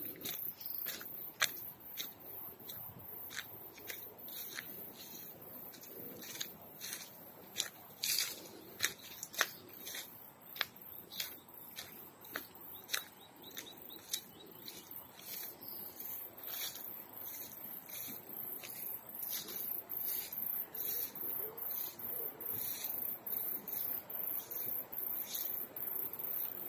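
Footsteps crunching through grass and undergrowth, a crisp step about every half second, stopping about halfway through. Under them a steady, pulsing, high-pitched chirring of insects runs on.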